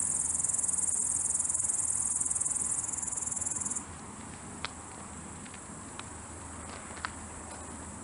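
Crickets trilling in a steady, high-pitched chorus that drops much quieter a little under four seconds in, with a few faint clicks after.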